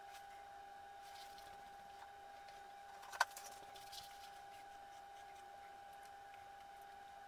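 Quiet room with a faint steady high-pitched whine; small handling noises from gloved hands and a pen, with one sharp click about three seconds in.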